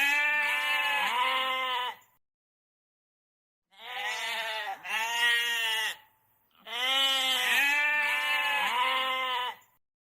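Goat bleating: three long, quavering bleats separated by short silences, the middle one broken into two parts.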